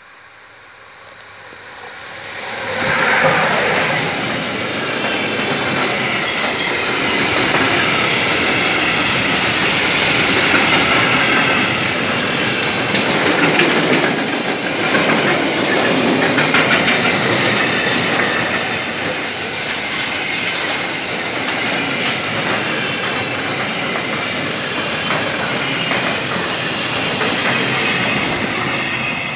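Freight train passing close by: the rumble and clickety-clack of its wagons' wheels on the rails swells within the first three seconds as it arrives, holds steady, and drops away at the very end as the last wagons go by.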